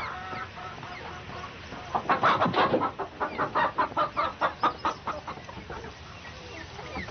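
Hens clucking in a quick run of short calls, about four a second, lasting a few seconds.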